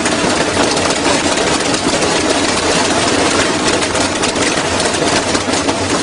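Washing machine running hard on its spin cycle: a loud, steady mechanical rumble with rapid rattling and knocking throughout.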